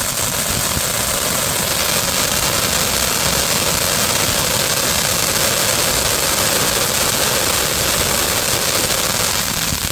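Firework fountain running: a loud, steady roaring hiss that holds evenly with no bangs or pops.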